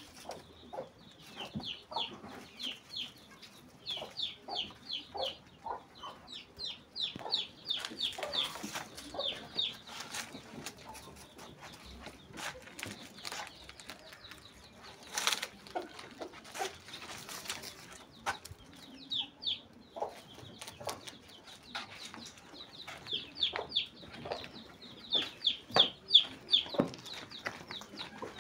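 Chickens clucking and calling, with quick runs of short, high chirps repeated again and again, over scattered rustles and light knocks.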